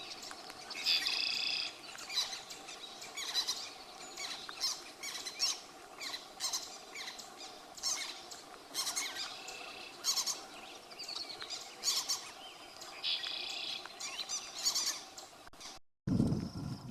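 Several wild birds calling: many short, high chirps, with a harsher, raspy call about a second in and again near the end. Just before the end the sound breaks off and gives way to a low rumbling noise.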